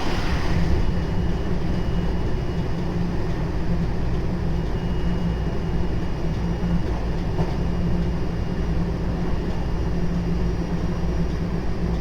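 JR West 223 series 0 electric train with Toshiba GTO-VVVF drive running at steady speed, heard from inside the car: a continuous low rumble of wheels on rail and traction-motor drone. A faint high whine comes and goes.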